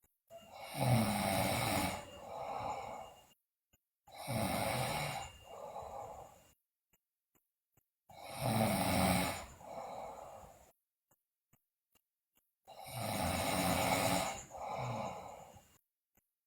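A sleeping girl snoring: four long snores about four seconds apart, each tailing into a shorter, softer second part.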